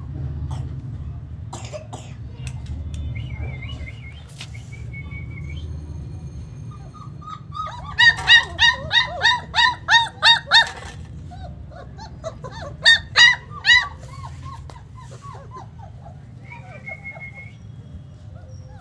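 German Shepherd puppy yelping: a rapid run of about nine high yips, three a second, starting about eight seconds in, then three more a few seconds later, over a steady low rumble.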